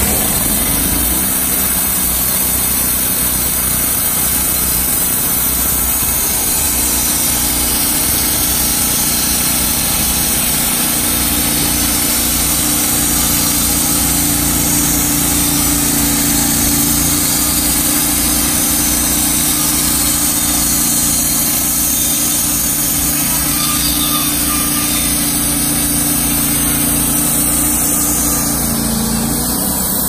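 Wood-Mizer LT35 hydraulic portable sawmill running, its engine-driven band saw blade cutting lengthwise through a log in one long, steady pass that ends shortly before the end.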